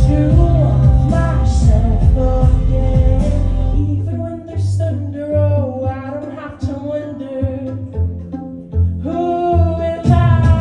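Live pop song with a singer over a band backing. The heavy bass drops out about four seconds in, leaving the voice over short bass hits, and the full backing comes back near the end.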